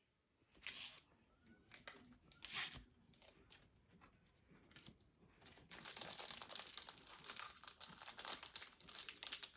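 Foil Pokémon TCG booster pack wrapper crinkling and tearing as it is opened by hand: a few short rustles at first, then a dense continuous crackle from about halfway through.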